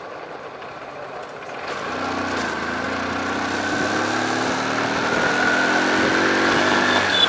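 Motorcycle engine accelerating, its pitch rising slowly from about two seconds in over wind and road noise.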